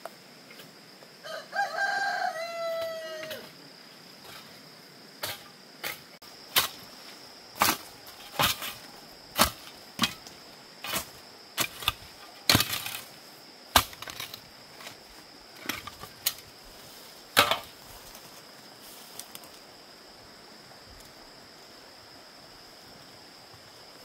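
A rooster crows once, about a second in, the call falling in pitch at its end. A run of sharp knocks follows, roughly one a second, for about twelve seconds, over a steady high insect drone.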